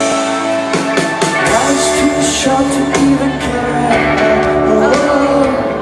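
Rock band playing live, with singing over guitar; the bass and drums come in about a second and a half in.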